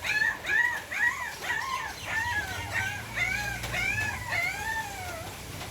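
Puppies crying: a rapid run of short, high-pitched, arching whines, two or three a second.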